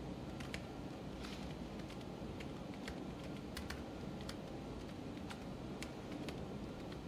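Typing on a laptop keyboard: faint, scattered key clicks at an irregular pace.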